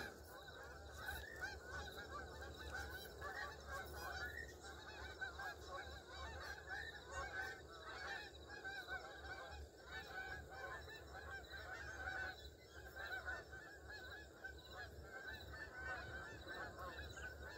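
Many faint, overlapping honks from a flock of Canada geese in flight.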